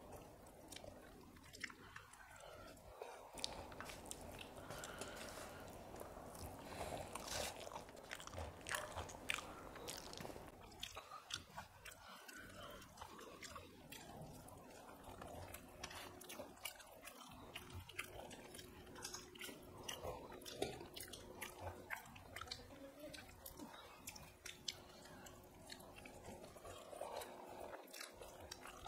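Faint chewing and mouth smacks of people eating rice and curry by hand, with many small wet clicks.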